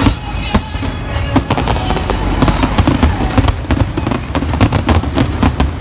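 Aerial fireworks shells bursting in a rapid barrage of bangs and crackles over a continuous low rumble, the bangs coming thicker and faster in the second half.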